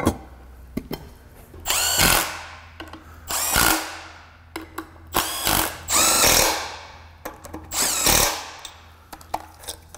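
Cordless Milwaukee power driver running down the intake manifold bolts in five short bursts. In each burst the motor whirs up in pitch and winds back down as the bolt seats.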